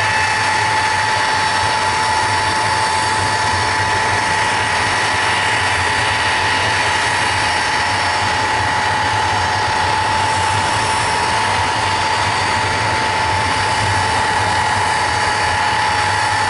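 Ilyushin Il-62 airliner's jet engines running steadily: a high, even whine over a constant rushing roar.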